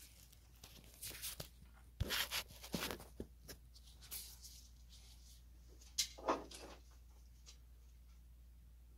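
Handling noises of wire and a wire stripper: scattered clicks, scrapes and rustles, with louder knocks about two seconds in and again about six seconds in.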